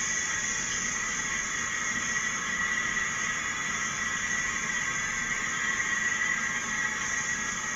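Steady hissing noise with no distinct events, from dashcam road footage played on a screen and re-recorded.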